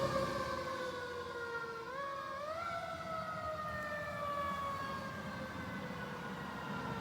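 Fire engine siren wailing as the truck moves away. It fades over the first second, its pitch sliding slowly down, rising briefly about two seconds in, then sliding down again.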